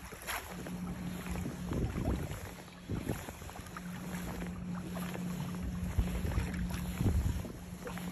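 Water slapping and splashing against the hull of a Hobie Outback pedal kayak under way in light chop, with wind on the microphone. A steady low hum runs beneath it from about half a second in.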